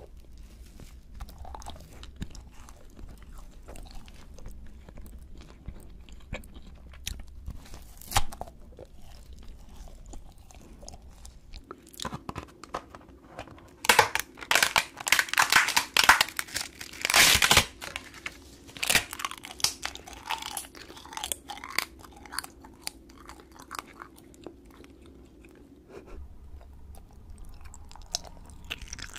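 Close-miked eating sounds: soft biting and chewing of a cream-filled taiyaki fish cake, then about halfway through a loud stretch of crisp crunching and crinkling as a thin white ghost-shaped sheet is bitten, followed by scattered quieter chewing clicks.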